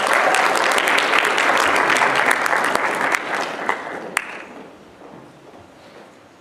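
Audience applauding, loud for about three seconds, then dying away over the next two, with one last sharp clap about four seconds in.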